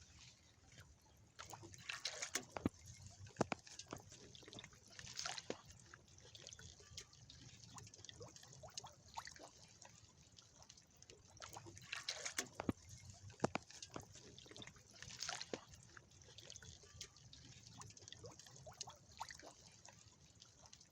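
Water splashing and dripping in short, scattered bursts, with small clicks and drips in between.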